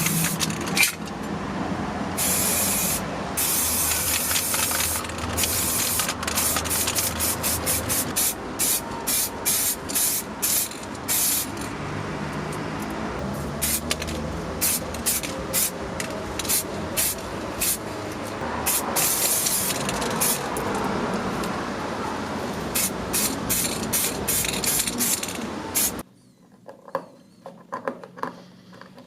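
Paint being sprayed onto the model car, hissing in many short on-off bursts, then stopping abruptly about 26 s in; a few light clicks and knocks follow.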